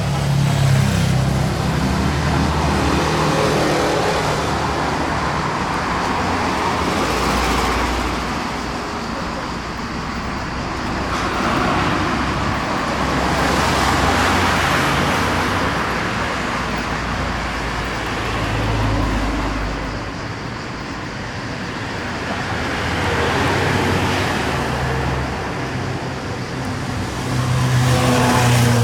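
Road traffic: vehicles going by one after another, their noise swelling and fading every few seconds over a low engine hum.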